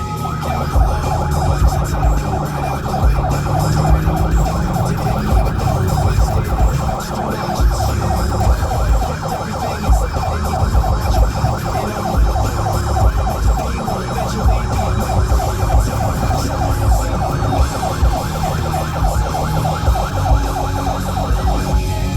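Patrol car siren sounding a fast repeating yelp, rising and falling several times a second, over a low engine and road rumble.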